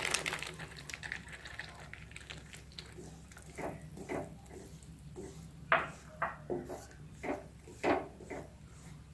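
Yogurt going into hot fried masala in a metal kadhai and sizzling, then a wooden spatula stirring it in, scraping and knocking against the pan about once or twice a second, with the sharpest strokes about six and eight seconds in.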